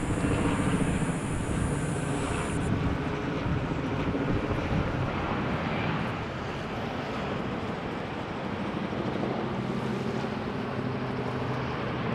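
Jet engine roar from a landing Boeing 767-300 freighter, a dense steady rumble with low engine tones. A high hiss cuts off abruptly about two and a half seconds in.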